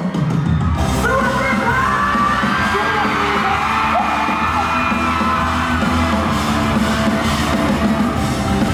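Live pop concert music in an arena, with a crowd of fans screaming and cheering over it. A sung line ends right at the start, and a new section of music comes in about a second in.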